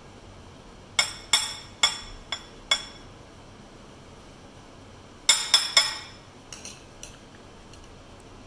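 A metal spoon clinking against the rim of a bowl as melted chocolate is knocked off it: five sharp ringing taps in quick succession, then after a pause three more close together, and a few faint taps after those.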